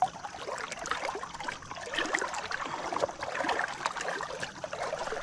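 River water splashing and churning, an uneven run of small splashes that stops abruptly at the end.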